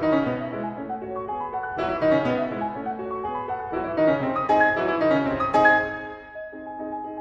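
Background piano music: a flowing run of notes and chords, each note struck and fading away.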